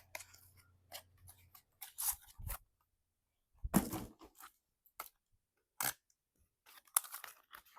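Faint, intermittent clicks, scrapes and rustles of toy packaging being handled and cut open, with a slightly longer rustle about halfway through.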